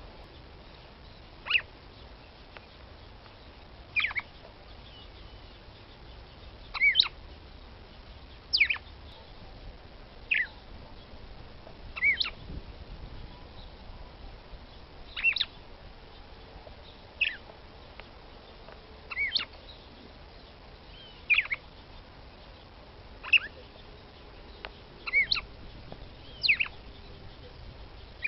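Female red-cowled cardinal (Paroaria dominicana) calling: brief high chirps repeated every one to two seconds, some in quick pairs. This is the female call used to stir up a male.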